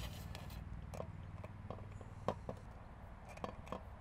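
Light, scattered metal clicks and taps, about eight in all, as a thumb screw and wing nut are turned to fasten two aluminum pie tins together, over a low steady hum.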